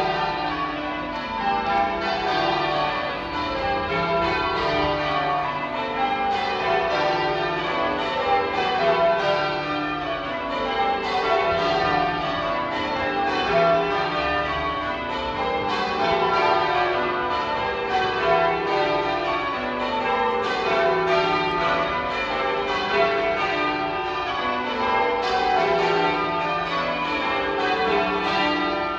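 Manchester Cathedral's church bells in full-circle change ringing: the bells strike one after another in quick descending rows, each row following straight on from the last at an even pace.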